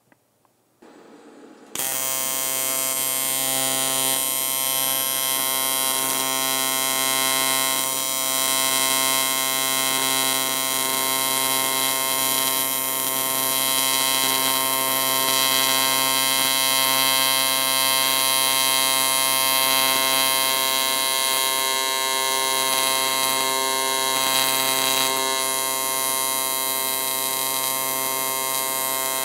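TIG welding arc on cast aluminum, buzzing steadily as the final cap pass is laid over the repaired crack; it strikes about two seconds in and holds without a break.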